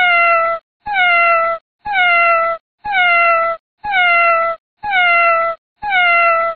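A cat meowing: seven identical meows in a steady rhythm of about one a second, each starting a little higher and sliding down in pitch, the same meow repeated over and over. The last one is cut off abruptly.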